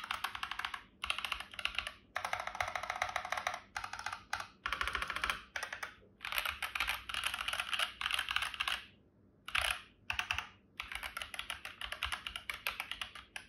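Fast typing on a Pressplay Orbiter mechanical keyboard: rapid runs of key clacks in bursts, separated by short pauses, with the longest break about nine seconds in.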